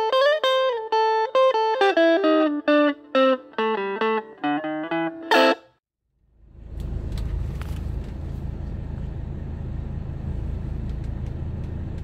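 A short electric-guitar tune of plucked notes stepping downward, ending about five and a half seconds in. After a brief gap comes a steady low rumble of a Mercedes-Benz W126's engine idling.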